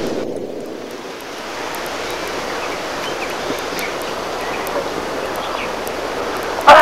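Steady outdoor rustling of weeds and brush, with a few faint bird chirps. A loud cry with a falling pitch starts right at the end.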